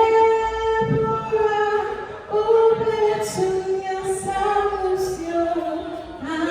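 A voice singing a slow line of long held notes that step up and down in pitch, with little or no accompaniment.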